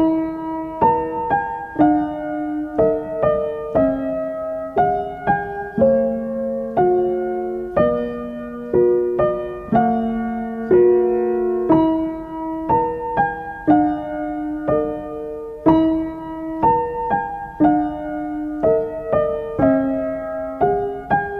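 Slow, gentle solo piano music: single notes and soft chords struck one after another and left to ring out.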